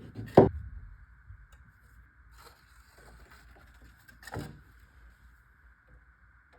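Hand drywall tools at work during skip trowel texturing: a sharp knock, faint scraping, then a second, softer knock.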